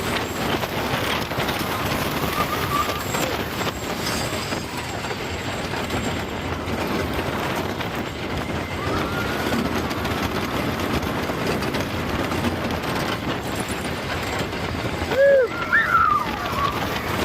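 Ghost Rider's wooden roller-coaster train running along its track: a steady, noisy rush of wheels and wind, with a few short rising-and-falling cries near the end.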